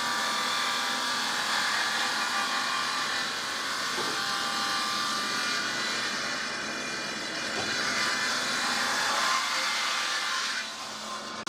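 Industrial stone-cutting saw grinding through a stone block: a steady, dense grinding noise with a faint whine, dipping in level near the end.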